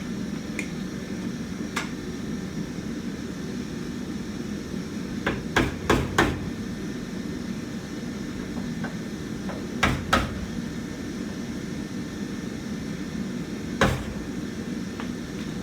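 Hammer blows on the car's metal body, in scattered sharp knocks: two faint ones early, a quick run of about four about five seconds in, a pair about ten seconds in and a single one near the end. A steady hum runs underneath.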